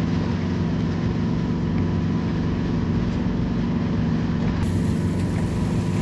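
A steady, loud engine drone with a low hum. About two-thirds of the way in, a brighter hiss joins it.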